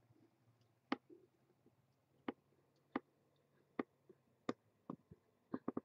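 Sharp clicks from a computer's mouse or keys: single clicks about once a second, then a quick run of five or six near the end.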